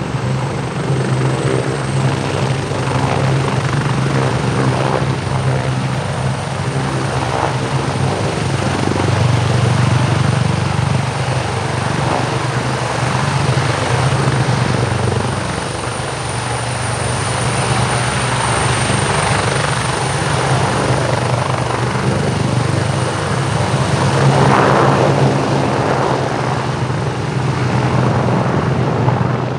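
Airbus H175M helicopter's twin turboshaft engines and rotors running as it lifts off and hovers, a steady high turbine whine over a low rotor hum.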